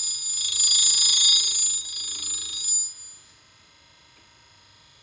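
Grinding wheel of a tool and cutter grinder biting into an annular cutter tooth during a sharpening pass: a loud, high-pitched screech that lasts about three seconds and then stops sharply.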